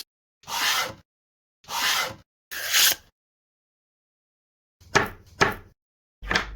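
Three short scraping strokes, like rasping or sanding wood, each cut off abruptly, followed near the end by a few sharp knocks.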